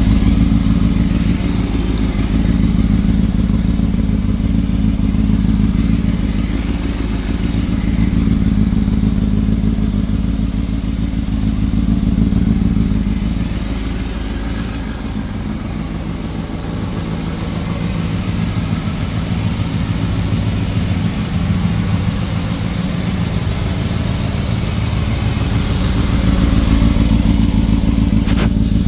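Kawasaki ZX-6R 636's inline-four idling steadily through a Laser aftermarket exhaust, louder near the end.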